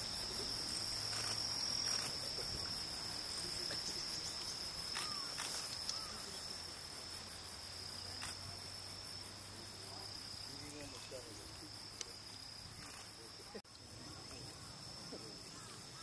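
Insects shrilling steadily in one high, slightly wavering tone, with a fast even pulsing above it, slowly fading.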